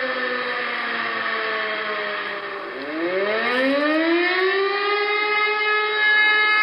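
Fire siren sounding the call-out alarm. It winds slowly down in pitch, then about three seconds in winds back up and holds a steady wail.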